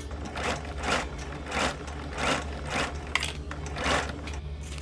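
Sewing machine stitching a seam through faux fur with a heavy-duty needle. The motor hums steadily while the stitching sound swells and eases about every 0.7 s, with one sharp click a little past three seconds in.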